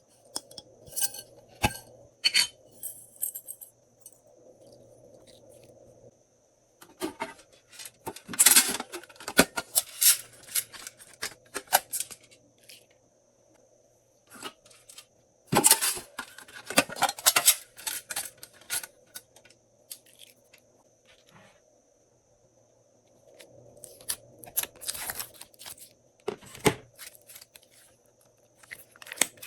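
Glossy slime being worked by hand: bouts of sticky clicking and crackling, each a few seconds long, with pauses between.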